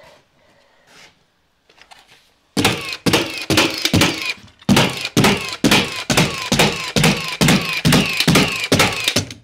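Milwaukee cordless framing nailer set to rapid fire, driving nails through OSB sheathing into the timber frame. About two and a half seconds in, the shots start and come in quick succession, roughly three a second, until near the end.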